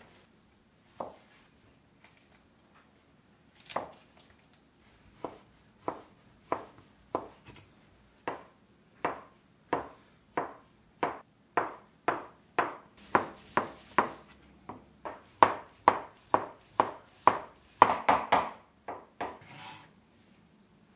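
Kitchen knife chopping sausage on a wooden cutting board: a regular run of sharp knocks, a little under two a second, that start a few seconds in and get louder, ending in a quick flurry of chops.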